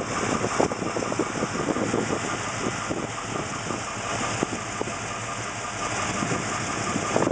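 1969 Plymouth Road Runner's freshly rebuilt 440 V8, bored .040 over, idling steadily, heard close up from the open engine bay.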